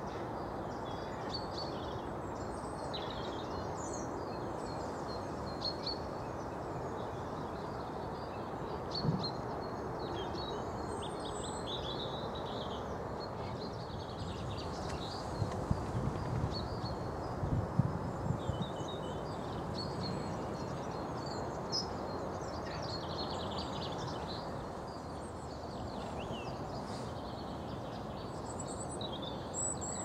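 Outdoor birdsong: many short chirps and calls from several small birds over a steady rushing background. A few low thumps come through near the middle.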